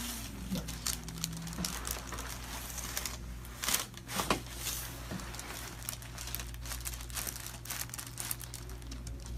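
Crinkling and rustling of the paper cover on a chiropractic treatment table as the patient shifts on it, over a low steady hum. There are a few sharp clicks about three to four and a half seconds in.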